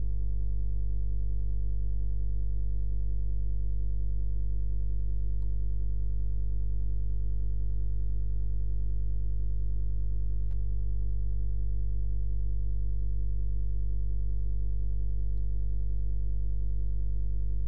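Steady low electrical hum with a stack of overtones, unchanging throughout, with a faint single click about ten seconds in.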